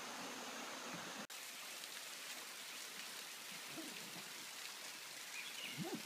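Waterfall water falling and splashing, heard as a steady, even rushing hiss; the sound drops out for an instant about a second in.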